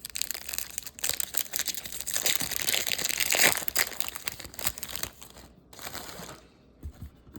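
Plastic trading-card pack wrapper crinkling as it is handled and opened, loudest about three and a half seconds in and dying away after about five seconds, leaving a few small handling sounds.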